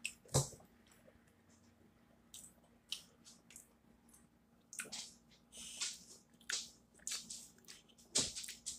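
Close-up chewing of french fries: faint, irregular mouth clicks and smacks, several short ones spread throughout.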